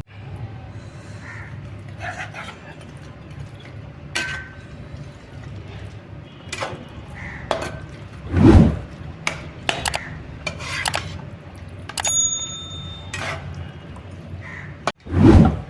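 Metal cooking utensils clinking and scraping against a pot, with scattered sharp clinks and one short ringing metallic clang about twelve seconds in. Two dull thumps, about halfway and near the end, are the loudest sounds.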